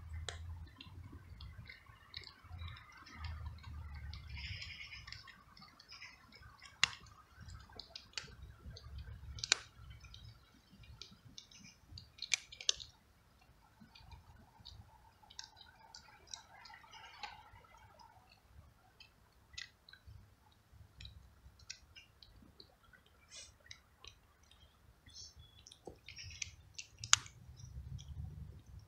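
Cat chewing dry kibble, heard close up: irregular sharp crunching clicks.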